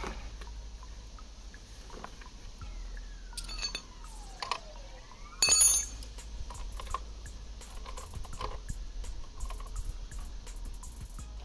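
Light metallic clinks and taps of tools and parts being handled, over a low steady hum, with one brief louder burst of noise about halfway through.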